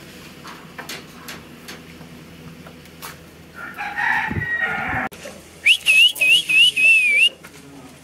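A rooster crows once, starting a little over three and a half seconds in and lasting about a second and a half. It is followed by a louder warbling whistle whose pitch dips and rises about five times over a second and a half.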